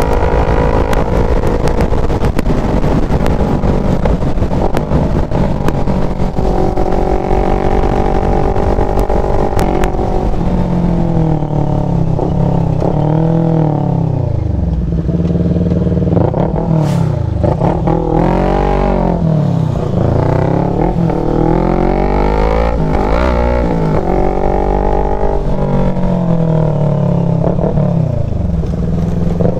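CFMOTO NK400's parallel-twin engine under way on board, holding steady revs at first, then rising and falling in pitch again and again from about ten seconds in as the throttle is opened and closed. Wind buffets the microphone during the steady stretch.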